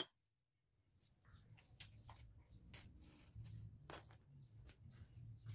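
Near silence: faint scattered ticks and clicks over a low hum, starting about a second in.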